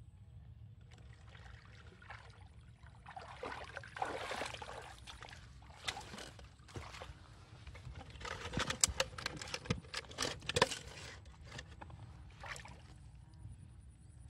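Shallow pond water sloshing and trickling as a fish trap of PVC pipe and netting is moved through it, followed by a run of sharp clicks and rustles from the trap's netting being handled.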